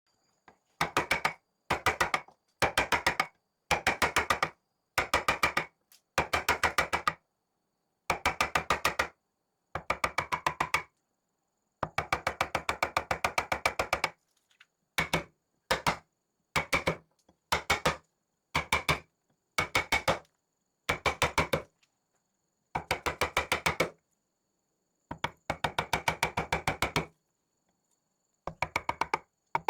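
Rapid, evenly spaced knocks, roughly ten a second, come in short bursts of one to three seconds with silence between them. They are typical of a mallet tapping a wood-carving chisel.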